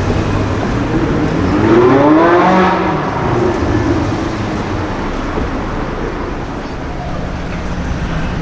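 A sports car's engine note rising and then falling in pitch as it accelerates past, loudest about two and a half seconds in, over steady street traffic.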